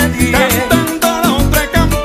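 Gaita zuliana music: a band playing an upbeat song with a steady beat and melody lines gliding over it.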